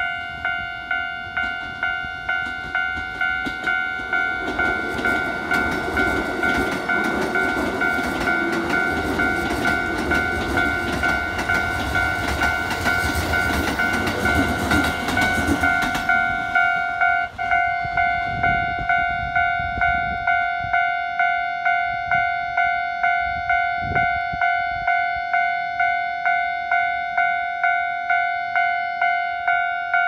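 Japanese level-crossing alarm ringing its electronic bell tone over and over, about two strikes a second. A red Keikyu electric train runs past over the rails from about four seconds in, its wheel noise fading away about sixteen seconds in.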